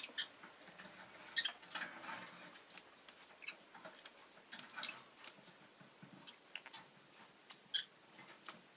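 Peach-faced lovebirds making short, scattered high chirps and clicks, faint, with two sharper chirps about a second and a half in and near the end.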